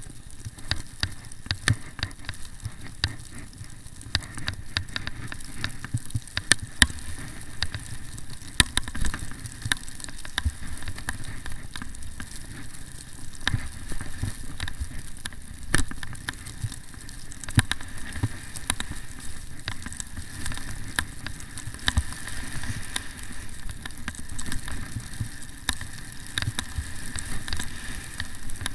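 Telemark skis running fast through bumpy fresh snow: a steady hiss of snow under the skis, broken by many sharp knocks and clicks as they hit the lumps.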